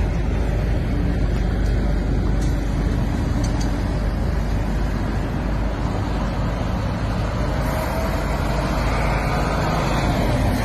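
Road traffic running past at close range, with a bus going by that grows louder in the last few seconds.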